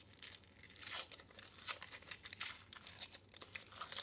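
Thin foil wrapper being peeled and crinkled off a chocolate egg by hand: a dense, irregular run of crackles and tearing.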